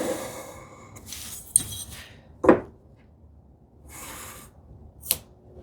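Wood and hand tools being handled on a workbench: short scraping and rubbing sounds with two sharp knocks, the louder one about halfway through.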